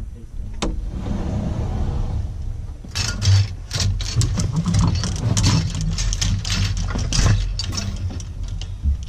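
Clothes rustling and wire hangers clattering on a closet rail as garments are grabbed and pulled off. There is a sharp click near the start, then from about three seconds in a quick run of clacks and rustles.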